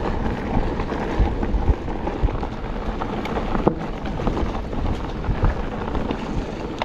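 Electric mountain bike ridden fast along a dirt woodland trail: a steady rush of tyre noise over dirt and leaf litter and wind on the microphone, broken by scattered sharp clicks and knocks from the bike over the rough ground.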